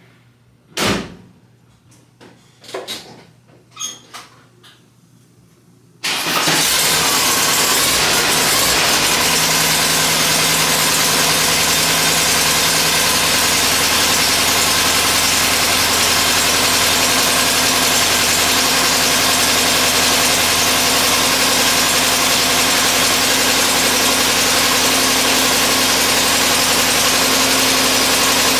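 A few knocks and clicks, then about six seconds in the Volkswagen Thing's air-cooled 1600 cc flat-four engine starts abruptly and settles into a steady, loud idle.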